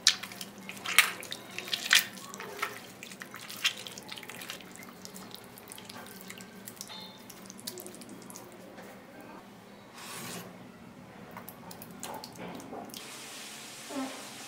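A hand squeezing and mashing soft tomatoes with chopped onion in a glass bowl: wet squelching and squishing, with several sharp splats in the first few seconds.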